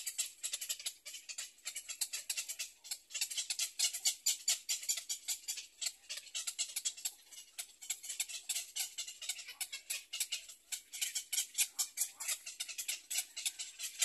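Black-crowned night heron chicks begging at the nest: a rapid, irregular chatter of dry, high clicking calls, many a second.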